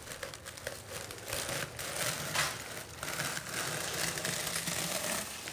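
Shredded paper packing rustling and crinkling irregularly as it is pulled away by hand from a lead tube.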